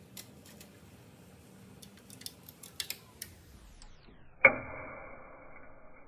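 Basswood truss bridge under test load: faint scattered ticks as glue joints and wood members begin to crack. About four and a half seconds in comes one loud, sharp crack with a fading tail as a member gives way.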